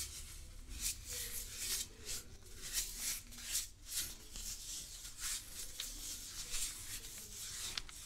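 Granulated Chinese herbs being shaken and tapped out of a plastic bottle into a glass beaker, a run of short hissing rattles several times a second.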